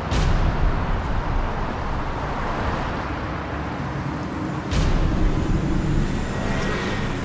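City street traffic: a steady rumble of passing vehicles, with a sudden louder swell right at the start and another almost five seconds in.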